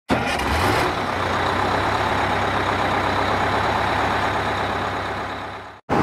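Steady engine running, as of a truck or bus, with a low hum and an even, unchanging noise. It fades a little near the end and then cuts off.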